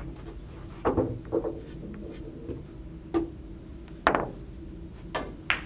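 Billiard balls clicking on a cone-billiards table: a run of about six sharp knocks as a shot is played and the balls strike each other and the cushions, the loudest about four seconds in, over a steady low hum.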